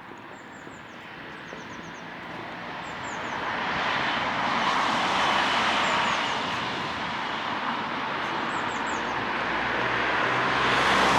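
A passing vehicle's rushing noise swells up a few seconds in and stays loud, while small birds chirp faintly several times.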